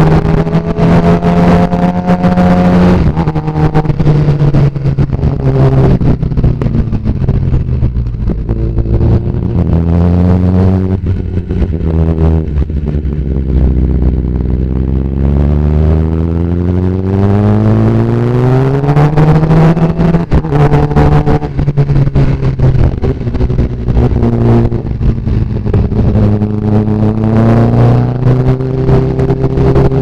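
Sport motorcycle fitted with an Austin Racing aftermarket exhaust, heard from the rider's seat while riding, its revs rising and falling through the gears. The engine note sinks low as the bike slows for a bend about halfway through, then climbs again as it accelerates away.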